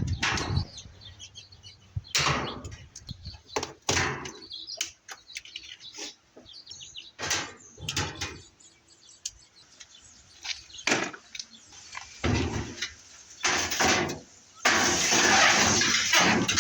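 Washing machine being taken apart: scattered knocks, clanks and clicks of its parts being handled. Near the end comes a harsh, steady noise lasting about two seconds.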